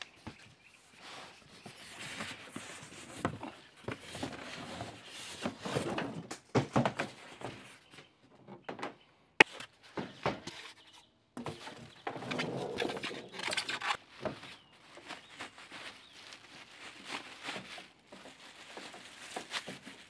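Unpacking noises: packaging rustling and being cleared away while the water heater is handled, with scattered knocks and one sharp click about nine seconds in.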